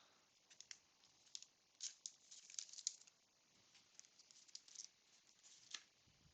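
Near silence with faint, scattered clicks and soft rustles of baseball cards being handled, thickest about two to three seconds in.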